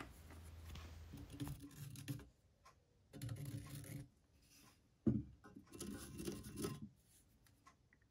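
Marker pen scratching faintly on a stainless steel flange as the bolt holes are traced, in three short spells, with a light knock about five seconds in.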